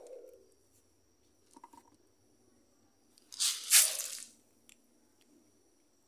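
A brief splash at the pond's surface during a feeding, lasting under a second and coming about three and a half seconds in, with a few faint clicks and drips around it.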